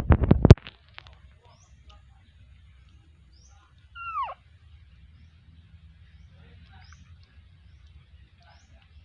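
A loud, brief clattering burst at the very start, then quiet outdoor ambience with a few tiny high chirps. About four seconds in comes a single short high call that slides steeply down in pitch.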